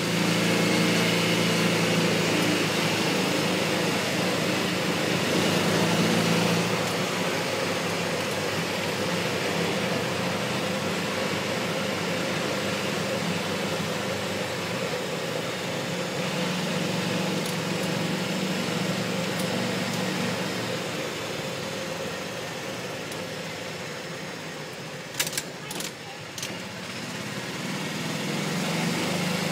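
Golf cart's small engine running steadily as the cart drives along a paved street. The engine sound eases off for a while, with a few sharp knocks near the end, then picks up again.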